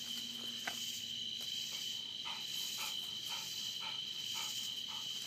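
Night chorus of crickets: a steady high-pitched trilling. About two seconds in, faint short chirps start, repeating about three times a second.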